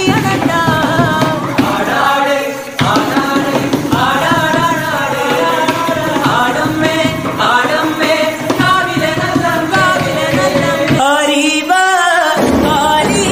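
Devotees singing Bharani pattu, the ritual songs of the Kodungallur Bharani festival, loud and continuous over the noise of a packed crowd.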